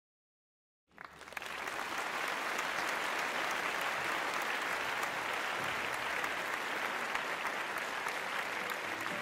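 Applause from a crowd clapping. It comes in about a second in after a moment of silence, then holds steady.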